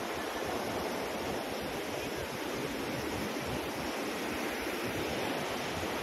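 Steady rushing of Athirapally Falls, a large waterfall, heard from the trail.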